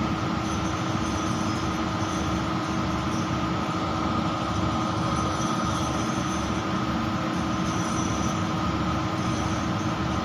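Drilling rig drawworks hoisting the top drive and a drill pipe stand out of the hole: a steady machinery drone with a constant hum in it.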